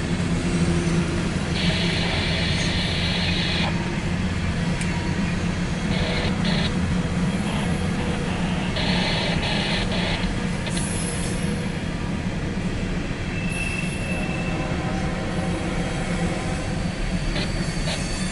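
Empty coal hopper cars of a CSX freight train rolling past: a steady rumble of wheels on rail, with higher-pitched wheel noise coming and going every few seconds.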